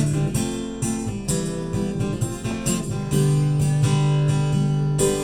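Acoustic guitar strummed in a steady rhythm, its chords ringing on between strokes, with no singing yet.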